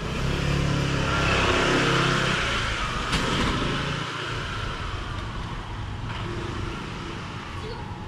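A motor vehicle driving past close by, its engine hum and tyre noise swelling to a peak about two seconds in and then fading away. A single sharp click sounds about three seconds in.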